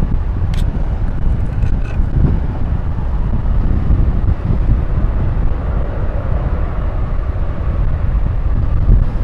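Steady low rumble of a Boeing 747-400's four turbofan engines at climb power as the jumbo jet climbs away.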